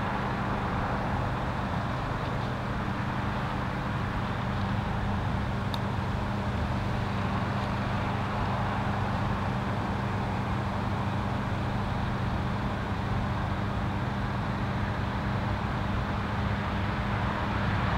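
Steam locomotive working a train up a steep grade as it approaches from a distance, heard as a steady drone with a low hum underneath.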